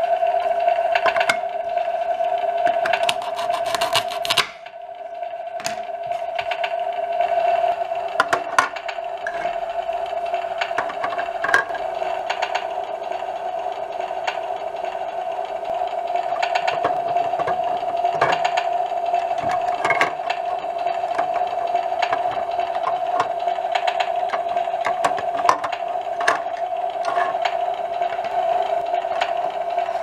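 Toy barbecue grill's electronic sizzling sound effect playing through its small speaker, a steady buzzing hiss over a constant hum that drops out briefly about four seconds in. Light clicks of plastic play food and a toy spatula tapping on the grill.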